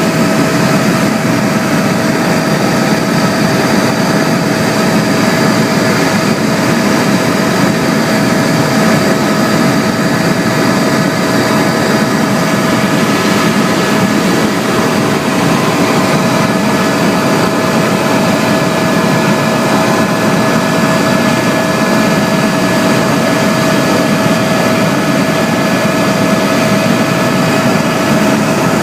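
Aircraft engine running steadily in flight, heard from on board: an even, unbroken drone with a constant humming tone over it.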